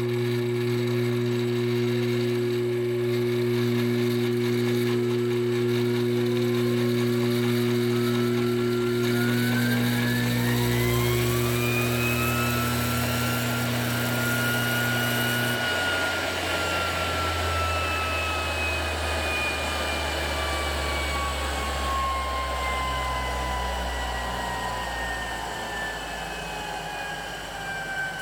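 DC treadmill motor with a flywheel, run from a speed controller: its whine rises in pitch over about ten seconds as the speed is turned up, over a steady electrical hum. About halfway the hum stops and the motor winds down, its whine slowly falling in pitch.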